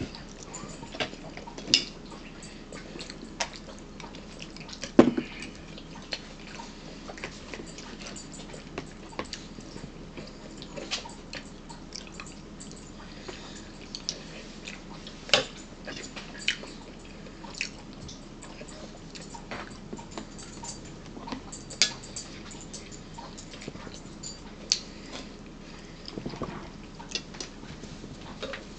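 Eating sounds at a dinner table: scattered sharp clicks of spoons on plates and bowls, and chewing of crackers, with one louder knock about five seconds in.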